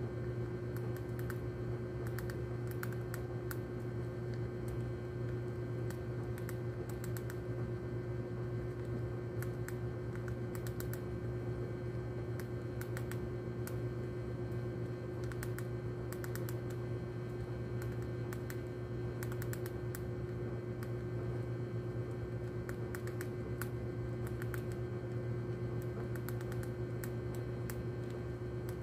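A rat gnawing and crunching hard blue rodenticide bait pellets, with quick sharp clicks coming in irregular short clusters. A steady low hum runs underneath.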